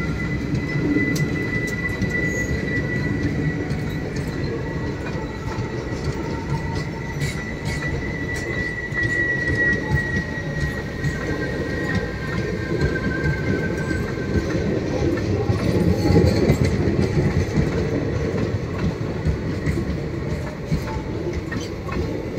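Passenger train coaches rolling past at speed: a steady, loud rumble with the clicks of wheels over rail joints, and a thin high wheel squeal that slides slightly lower and fades out about two-thirds of the way through.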